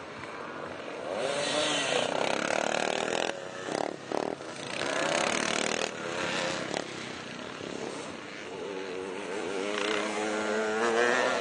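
Vintage motocross motorcycles running on the track, their engines revving hard with the throttle shut off and opened again several times in the middle. Near the end a bike climbs close by, its engine note rising as it accelerates.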